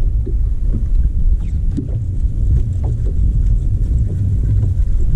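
Wind buffeting the microphone as a steady low rumble, with choppy water lapping against the hull of a bass boat.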